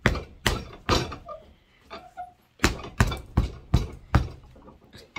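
Rubber mallet beating around the edges of a freshly glued medium-density soling lift on a shoe, pressing it down to bond. There are three knocks, a pause of about a second and a half, then a steady run of six more at about two to three a second.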